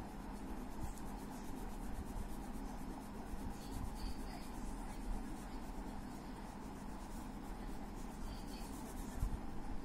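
A red crayon rubbing back and forth on paper in quick shading strokes, laying red over yellow to colour an apple. A steady low hum runs underneath.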